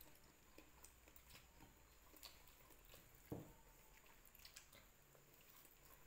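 Near silence with faint eating sounds: small clicks and mouth noises, and one soft knock a little past three seconds in.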